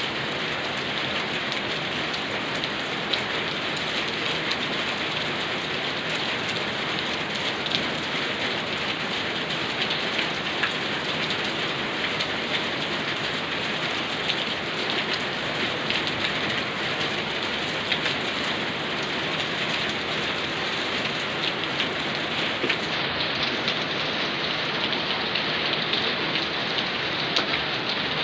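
Steady rain falling and pattering on a surface: an even hiss dotted with the ticks of many individual drops.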